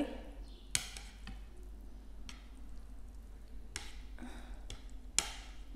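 Eating noodles with wooden chopsticks: a handful of short, separate clicks and mouth smacks, spaced a second or so apart, over a faint low hum.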